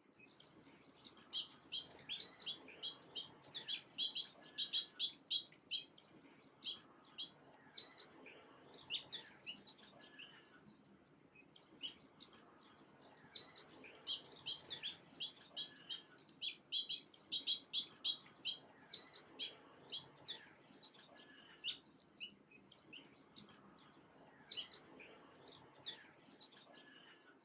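Small songbirds chirping: quick runs of short, high, repeated chirps, with single higher calls in between.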